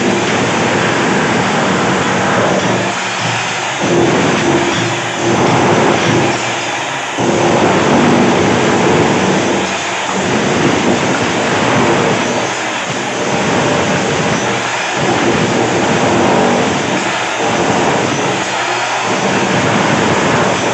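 Electric demolition hammer chipping ceramic wall tiles and the mortar bed off a bathroom wall. It runs loud in bursts of two to three seconds with brief pauses between them.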